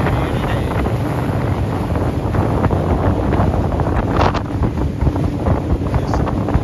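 Wind buffeting the microphone over the steady running of a small boat's motor as it cruises across choppy water, with a sharper knock or slap about four seconds in.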